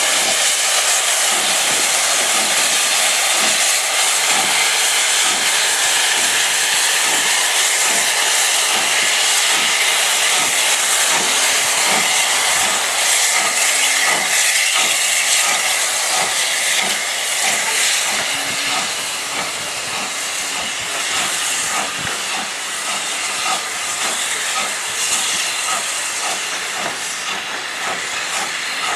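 Loud, steady hiss of escaping steam from an LSWR M7 0-4-4T steam tank engine, vented from the top of the boiler and from the cylinder drain cocks as it moves off slowly. It drops somewhat in level about two-thirds of the way through.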